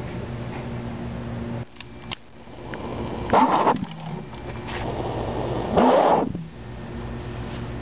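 Isopropyl rubbing-alcohol vapour burning in bottles, jetting flame out of their necks with a rushing whoosh. There are two loud surges about two and a half seconds apart.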